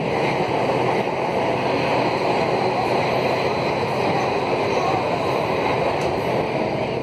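Steady rushing ride noise inside an Alstom AS 02 steel-wheeled metro car running on elevated track, while another train passes close alongside on the other track.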